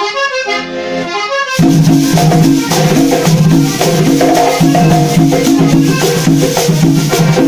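Cumbia band playing live: a button accordion opens alone, then about a second and a half in a metal scraper, drums and bass notes come in with a steady dance beat.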